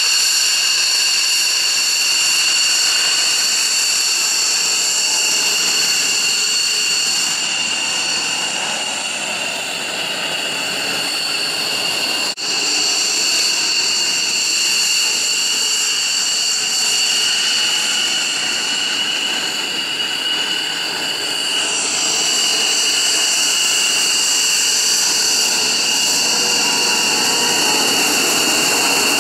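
F-15 fighters' twin jet engines at taxi power, a steady loud whine made of several high tones over a rushing noise as the jets roll past. A short click and dip about twelve seconds in.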